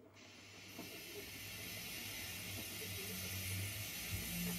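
O gauge model steam goods locomotive, an LNWR Super D, hauling its wagons: a steady hiss over a low hum and rumble of the running train, growing louder as it comes on.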